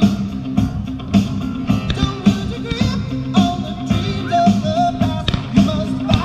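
Song with a singing voice over bass and a steady drum beat: the soundtrack music of a fireworks show.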